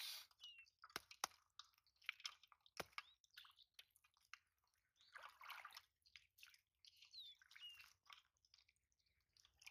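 Faint, scattered wet clicks, drips and squelches as small live fish and water drop from a woven fish trap into a metal bowl and the trap is handled in mud and water. A few short high bird chirps are heard now and then.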